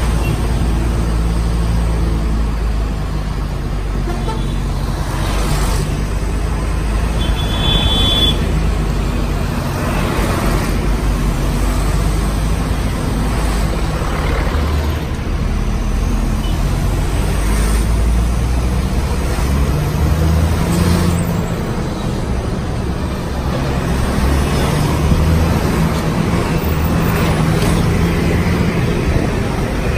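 Engine and road noise of a vehicle driving along a street, heard from inside, a steady low rumble with passing traffic. A short high horn toot sounds about eight seconds in.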